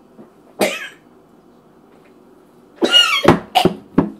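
A man coughing and gagging on a mouthful of foul-tasting food: one short cough about half a second in, then a loud strained gag near the end, followed by three sharp coughs.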